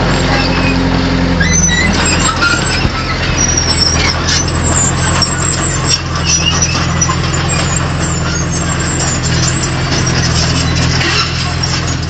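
Bulldozer diesel engine running steadily under load, with scattered metallic clanks and short squeaks.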